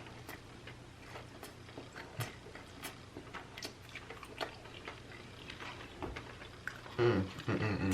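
Close-up mouth sounds of people chewing big bites of soft strawberry-iced doughnut: wet smacking and many small irregular clicks. Near the end a short voiced murmur is heard.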